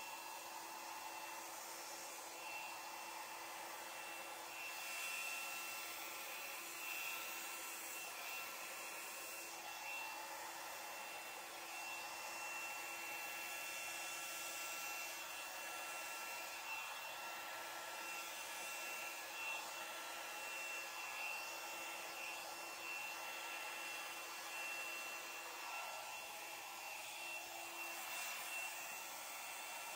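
Handheld blow dryer running steadily: a rush of air with a thin, steady high whine from its motor, as it blows poured acrylic paint across a canvas.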